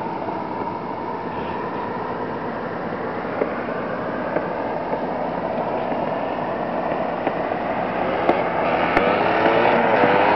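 Yamaha WR200R single-cylinder two-stroke dirt bike engine running out of sight, growing louder over the last few seconds as it comes closer, its pitch rising and falling with the throttle.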